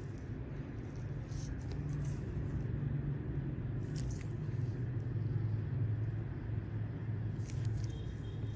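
A steady low rumble, with a few brief faint clicks.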